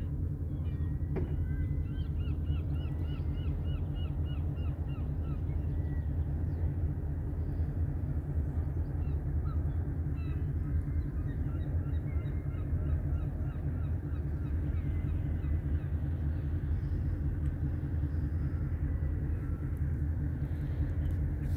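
Steady low engine drone, which the person filming wonders may be a ferry, with a bird breaking in several times with rapid runs of short high calls.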